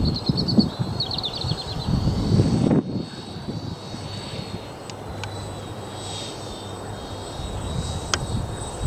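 Engines of a radio-controlled B-24 Liberator scale model droning steadily as it flies past. Gusts of wind buffet the microphone for the first few seconds, and a small bird trills twice near the start.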